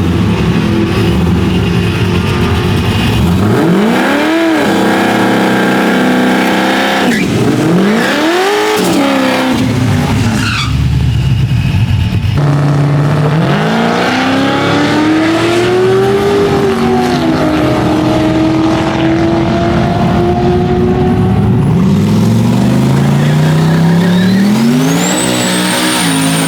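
Drag car engine revving hard, its pitch climbing and dropping several times as it runs up and falls back, with a rising high whine near the end.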